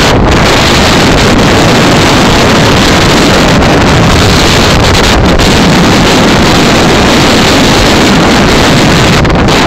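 Strong hurricane wind buffeting the phone's microphone, a loud, steady rush of noise with no letup.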